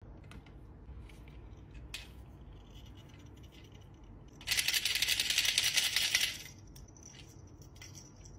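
Small plastic chime ball toy shaken by hand for about two seconds near the middle, giving a loud, dense jingling rattle. A faint high ring lingers after it, with light handling clicks before.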